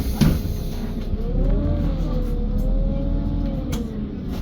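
Menarinibus Citymood 12 CNG city bus running, heard from inside: a low rumble with a whine that rises and then falls in pitch as the bus changes speed, a sharp knock just after the start, and a few light rattles. The engine is heavily soundproofed, so it is barely heard.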